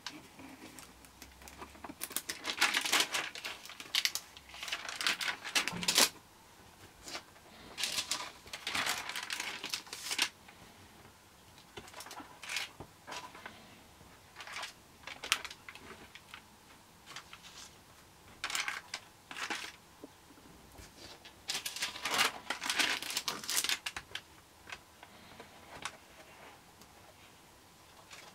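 Pages of a Lighthouse stamp album being turned by hand, the stiff album pages and their transparent interleaving sheets rustling in short bursts every few seconds.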